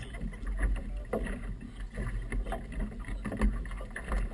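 Choppy river water slapping and knocking against a small motorboat's hull, over an uneven low rumble.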